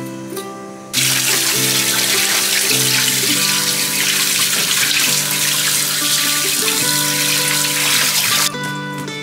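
Kitchen tap running onto peeled potatoes in a woven basket strainer as they are rinsed under the stream; the water starts abruptly about a second in and cuts off near the end. Acoustic guitar music plays underneath.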